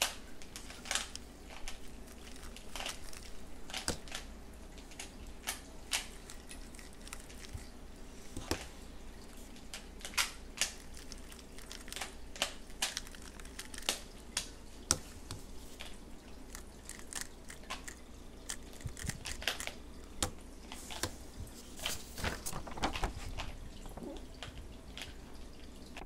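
Plastic 3x3 speed cube being turned by hand: a quick, irregular series of clicks and clacks as its layers snap round through the turns of an algorithm.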